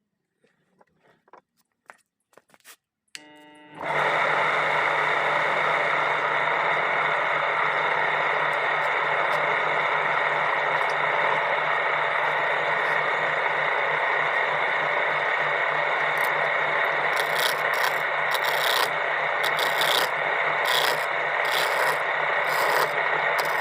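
An electric woodworking power tool starts up about three seconds in and then runs steadily, working against wood with a constant motor hum. In the last few seconds, short, sharper rasping strokes are added as it bites into the wood.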